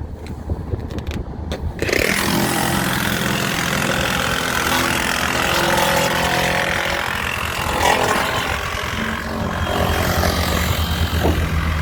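An engine running over a steady low hum, its louder noise coming in about two seconds in.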